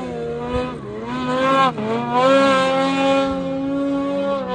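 Snowmobile engine revving hard through deep powder, its pitch dipping briefly about a second in and again near two seconds, then held high and steady.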